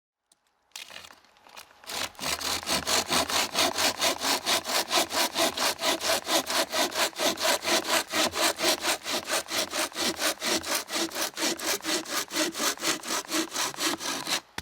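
Small, sharp hand saw cutting through a piece of dry deadwood with fast, even strokes, about four a second. The sawing stops abruptly near the end as the cut goes through.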